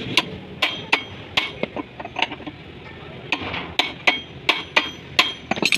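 A hammer striking steel parts over and over, about two or three blows a second, each with a short metallic ring, with a brief pause midway.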